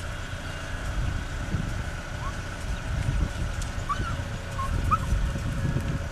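A dog giving a few short, rising whimpers from about two seconds in, over a steady low rumble of wind on the microphone.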